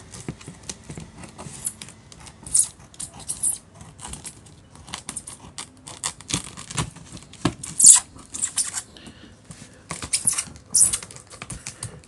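Scissors snipping and scraping along the packing tape on a cardboard box seam: a run of irregular clicks and short scratchy rustles, the loudest about eight seconds in.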